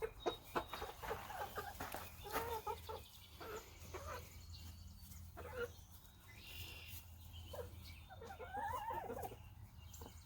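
Backyard hens clucking while they feed, in short calls, with a run of sharp taps in the first second.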